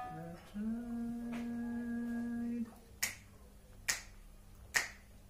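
A single steady note is held for about two seconds, then three finger snaps just under a second apart count in the tempo of an a cappella song.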